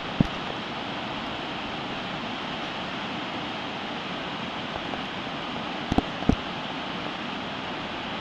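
Steady rush of a fast whitewater river pouring over rocky rapids. A few sharp clicks cut through it, one just after the start and two close together about six seconds in.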